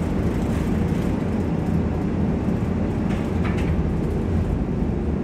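1947 St. Louis Car Co. PCC streetcar running along the track, heard from inside the car as a steady low rumble of wheels and running gear, with a couple of brief clicks or rattles about three seconds in.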